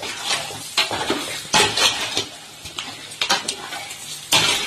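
A metal spoon stirring chicken roast in a large metal pot, scraping and clinking against the sides in irregular strokes, with the masala sizzling underneath.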